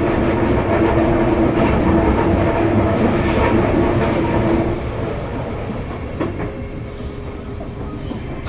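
Sotetsu 8000 series electric train with Hitachi GTO-VVVF control running, heard from inside the car: a steady rolling rumble with a steady hum. The hum and the overall noise drop away a little past halfway through, and the running sound is quieter after that.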